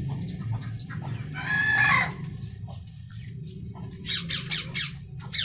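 Caged birds calling: one drawn-out squawk that slides in pitch about a second and a half in, then a quick run of sharp calls near the end, over a steady low hum.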